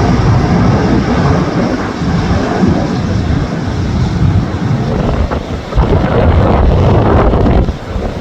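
Strong gusty wind buffeting the camera's microphone: a loud, uneven rumble that swells a little past halfway and eases near the end.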